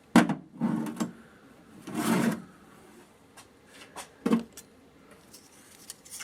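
Metal parallels being handled in a toolbox drawer: a sharp knock, a couple of scraping slides and a dull knock as bars are picked up, shuffled and set down.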